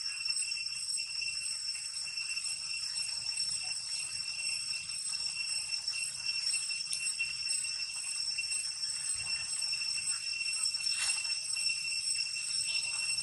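Steady, high-pitched insect chorus: a few even shrill tones held without a break, with a brief click about eleven seconds in.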